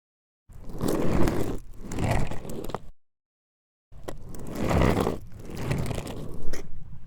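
Skateboard wheels rolling in two separate passes, each a few seconds of rolling noise that swells and fades, with an occasional sharp click. Each pass cuts off abruptly into silence.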